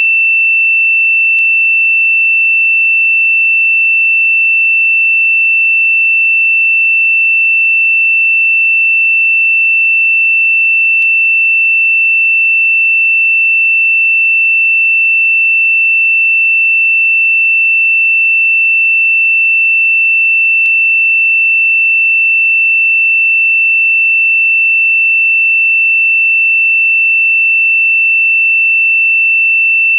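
A single high-pitched, electronically generated pure sine tone held at one steady pitch and loudness, with no pulsing or change.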